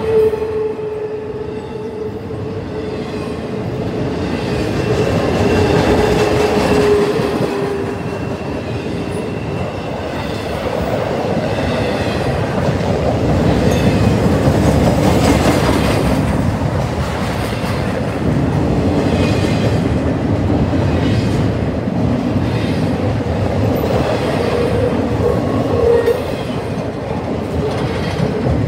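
Double-stack intermodal freight train's container well cars rolling past: a steady rumble of steel wheels on rail with rhythmic clacking. A high steady whining tone fades out about nine seconds in.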